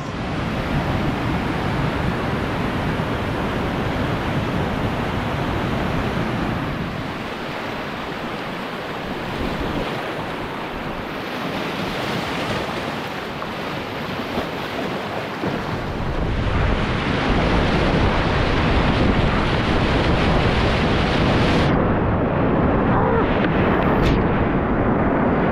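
Whitewater rapids rushing around an inflatable kayak. The water grows louder about two-thirds of the way in and turns muffled for the last few seconds as spray washes over the camera.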